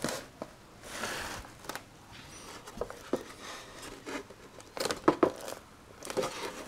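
EPO foam wing halves being handled and pressed together: scattered rubbing and light knocks of foam on foam, with a few faint high squeaks.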